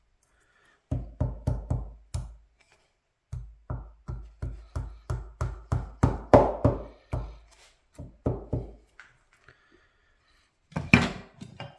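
A mallet knocking repeatedly on a maple block, tapping walnut inlay strips down into their recess. It comes in quick runs of about three to four knocks a second, with short pauses, and one louder knock near the end.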